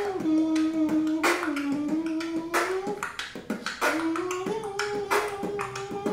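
Beatboxing with a hummed melody: a held tune that slides between notes, over sharp beats about every second and a half with lighter clicks in between.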